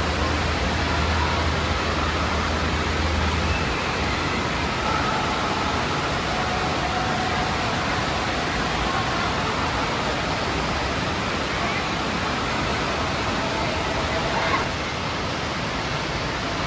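Indoor water park din: a steady rush of running and splashing water mixed with the distant babble of many voices. A low hum underneath stops about three and a half seconds in, and there is a brief knock near the end.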